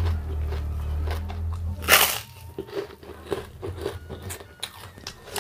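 Close-up crunching of a crisp kerupuk cracker being bitten and chewed: one loud crunch about two seconds in, then lighter crunches and clicks. A low hum sits under the first two seconds and stops.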